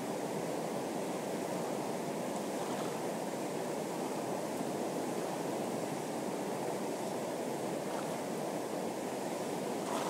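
Steady rushing of a fast-flowing river over rocks.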